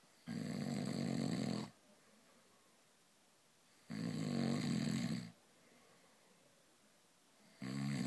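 Snoring: three snores, each about a second and a half long, coming every three and a half seconds or so. The third starts near the end.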